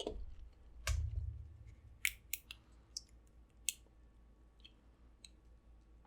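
Snow crab shell being cracked and snapped apart by hand: a series of short sharp cracks and clicks, with a dull thump about a second in.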